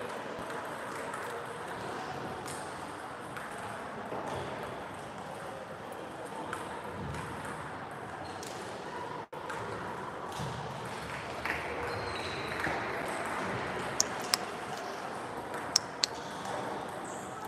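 Table tennis ball clicking off bats and the table during a rally, over a steady murmur of voices in a large hall. There are a few loud, sharp clicks near the end.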